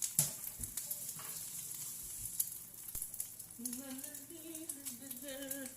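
Two eggs frying in hot oil in a pan: a steady sizzle with scattered crackles and pops.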